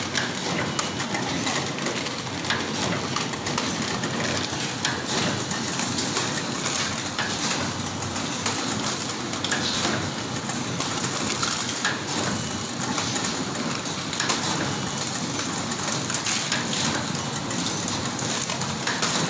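Automatic rusk packing machine running: a steady, dense mechanical clatter with many small clicks and rattles.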